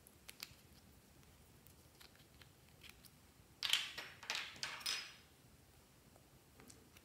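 Plastic screw caps of a contact lens case being unscrewed and handled: two small clicks just after the start, then a cluster of scratchy plastic clicks and scrapes from about three and a half to five seconds in.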